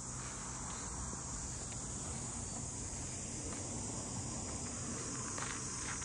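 A chorus of cicadas shrilling as one steady high-pitched hiss, unbroken throughout.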